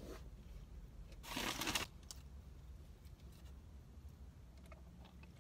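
A brief crinkle of a paper burger wrapper about a second and a half in, followed by a few faint ticks against a quiet background.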